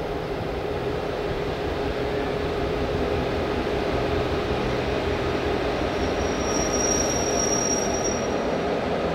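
A 421 class diesel-electric locomotive rolling slowly into the platform with its train, its engine rumbling and growing a little louder as it draws alongside. From about six seconds in a thin, high, steady squeal from the running gear sounds for a couple of seconds.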